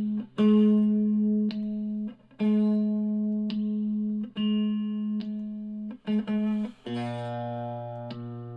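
Les Paul electric guitar strummed with the pickups on the new phase switch: the same chord struck about once a second, then a lower chord from about seven seconds in that rings on. The tone is a phase-switch test, which he judges to sound out of phase.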